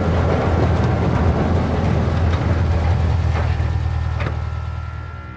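Heavy, steady low rumble of a train running, fading away over the last second or two.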